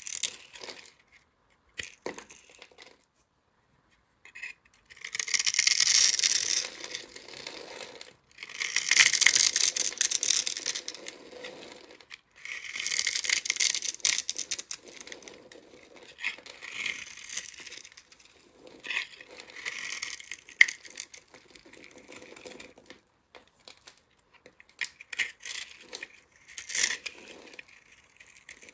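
Utility-knife blade slicing through a grid-scored bar of soap, cutting it into tiny cubes that break away with a crisp crackle. Three long passes come in the first half, then shorter, choppier strokes.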